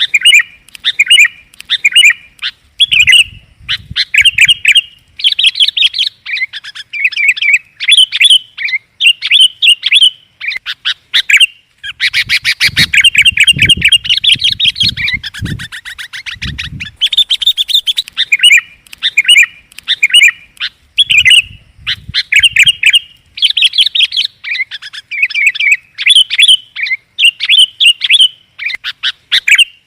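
Sooty-headed bulbul (kutilang) calling: short bubbly chirping phrases repeated one after another, with a rapid chattering stretch near the middle. This is a lure call used to draw in wild bulbuls.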